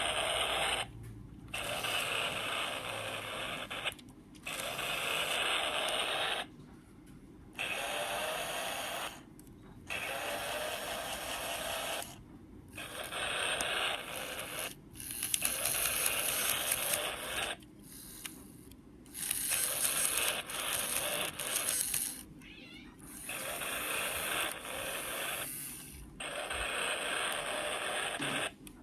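Battery-operated vintage Everbright toy construction vehicle playing its sound effects in repeated bursts of one to three seconds, about a dozen times, with short pauses between.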